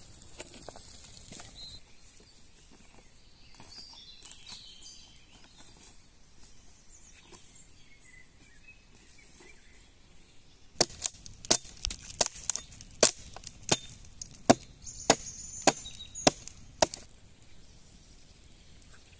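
Dry wood cracking sharply: about a dozen snaps, roughly two a second, in the second half. Before them, faint footsteps and rustling in leaf litter.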